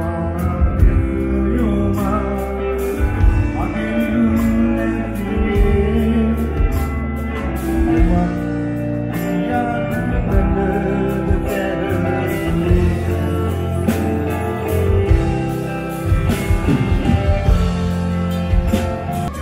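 Live rock band playing: electric guitar over a drum kit, with cymbals struck steadily.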